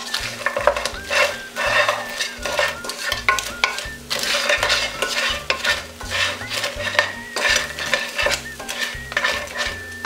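Wooden spatula stirring and scraping fried chicken wings around a nonstick pan, a quick run of repeated scrapes and knocks, with light sizzling from the still-hot oil.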